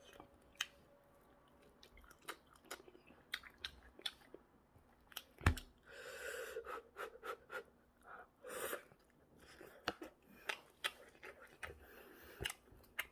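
Quiet chewing of food close to the microphone, with scattered short mouth clicks and smacks.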